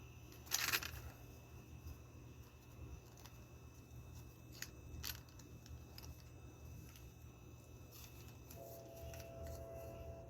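Packaging being handled during unboxing: a short rustle about half a second in, then a few faint clicks, and a faint steady tone near the end.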